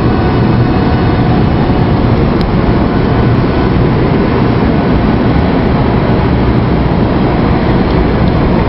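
Steady low rumble of vehicle noise, with no clear rise or fall.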